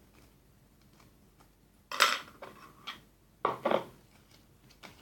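Plastic spoon knocking and scraping against a bowl as slime is scraped off them: a sharp clatter about two seconds in, then a double clatter a second and a half later, with a few lighter knocks.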